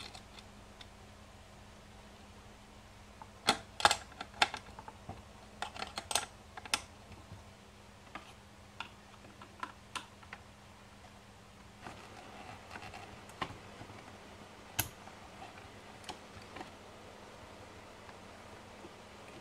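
Irregular light clicks and knocks of wires, connectors and the box being handled as red power leads are pushed into a small project enclosure. They are busiest about four to seven seconds in, then come sparser.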